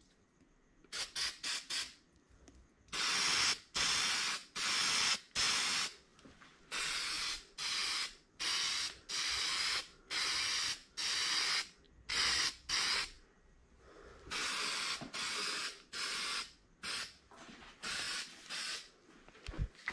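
Aerosol spray-paint can hissing in many separate bursts with brief pauses between. It starts with a few quick spurts, then settles into a run of longer bursts of about half a second to a second each.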